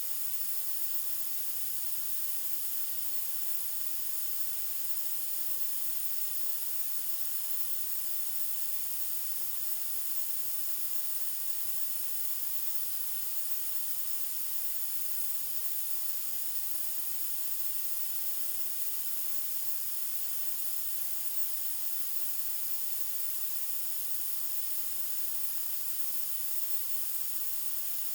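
Electronically generated white noise: a steady, unchanging hiss, strongest in the treble.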